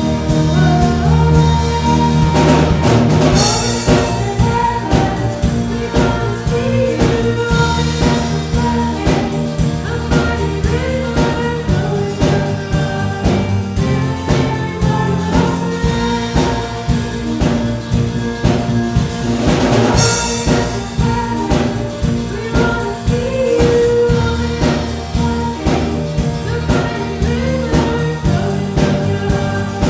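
Live church worship band playing a worship song on drum kit, electric guitars and keyboard, with sung vocals. Cymbal crashes ring out about three seconds in and again about twenty seconds in.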